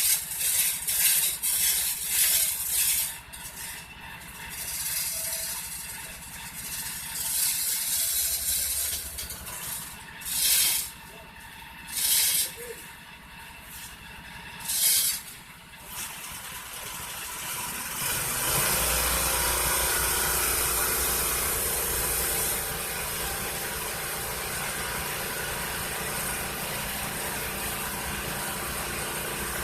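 Rapid metallic clinks and knocks. A few short hissing bursts follow, then about eighteen seconds in a small engine starts running steadily with a low hum.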